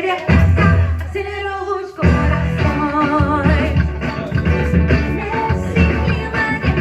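Recorded Christian worship song playing, sung with a band backing and a steady beat; the full band comes in about two seconds in.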